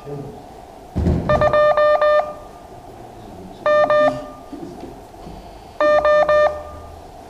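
Morse code tone at one steady buzzy pitch, keyed in three short groups of dots and dashes about a second in, near four seconds and near six seconds. Each group is a single Morse character sent for a beginners' class to copy.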